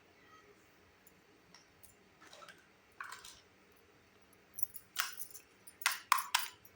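Small mini-kitchen toy pieces and packaging being handled: a couple of soft brief scrapes, then a quick run of sharp little clicks near the end.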